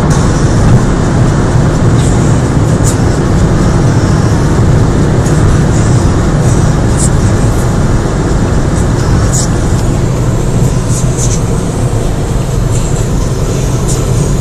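Inside the cabin of a Ford Focus with the 2.0 Duratec four-cylinder, running at about 175 km/h: loud, steady engine, wind and tyre noise, with no change in pitch.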